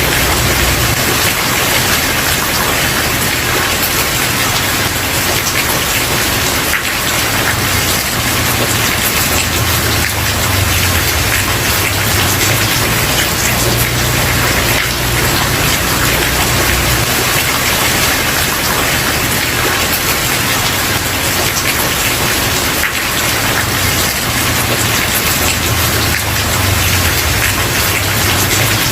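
Steady rain falling on a wooden porch, an even patter with no sudden sounds, over a low rumble that swells and fades.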